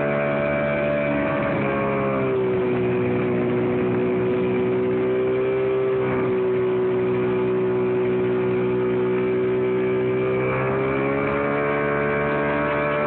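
Mini jet boat's outboard motor running underway; its pitch drops as the throttle eases about two seconds in, holds steady, then rises again about eleven seconds in.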